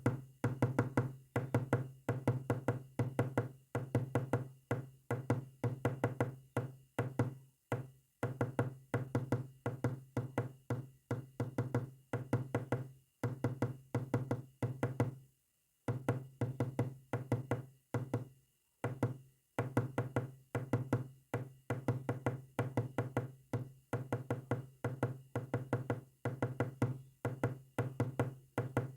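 Morse code sent as rapid, short, low-pitched knocking tones, in runs broken by brief pauses.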